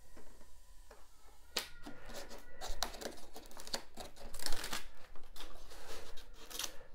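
A hand rubbing and sweeping across the freshly cut top of Styrodur foam blocks: a scratchy rustling in uneven strokes that starts about one and a half seconds in.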